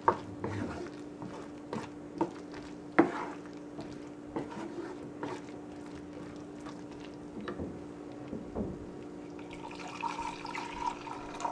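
Wooden spoon stirring a thick, wet ground-coconut masala with cooked vegetables in a nonstick frying pan: wet squelching with scattered taps of the spoon against the pan. A steady low hum runs underneath.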